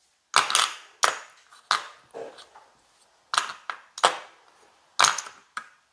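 Casino chips clacking together as a hand picks them up and stacks them: a string of sharp, irregular clicks with a brief ring.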